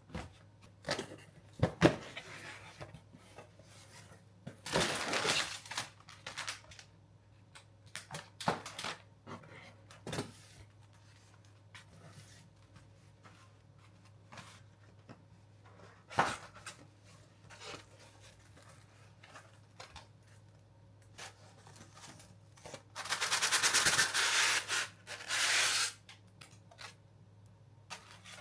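Packaging being handled: scattered rustles and clicks, then a longer rasping tear for about three seconds near the end.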